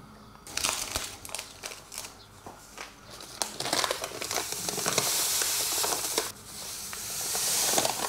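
A bag of white sugar crinkling, then sugar pouring out of it in a steady high hiss. The hiss cuts off suddenly about six seconds in and starts again near the end.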